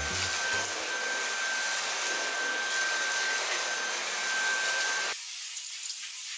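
Cordless stick vacuum cleaner running over carpet: a steady motor whine over a rushing hiss. About five seconds in the sound cuts abruptly to a thinner, higher hiss with a different whine.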